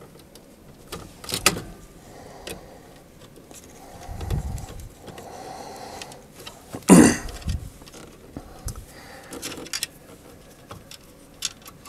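Handling sounds of wiring a variable frequency drive's control terminal block: scattered light clicks and taps of wire ends, plastic housing and a small screwdriver at the terminal screws, with one louder sharp sound about seven seconds in.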